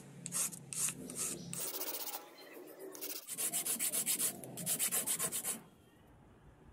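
A carved wooden knife handle's round neck being sanded with a flat wooden strip in quick back-and-forth strokes. The strokes come in two runs with a lull between and stop about a second before the end.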